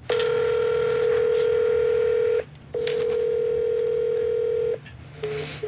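Ringback tone of an outgoing phone call: a steady electronic beep held for about two seconds, a short break, then held about two seconds again, with a few short faint beeps near the end. The call goes unanswered.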